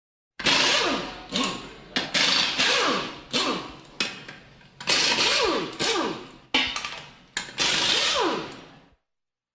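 Pneumatic air wrench fired in a series of short trigger bursts, about a dozen, each starting suddenly and winding down in pitch as the tool spins down. The bursts stop about nine seconds in.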